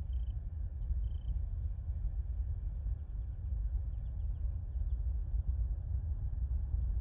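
A steady low rumble, with insects trilling faintly and steadily at a high pitch and a sharper high chirp about every one and a half seconds.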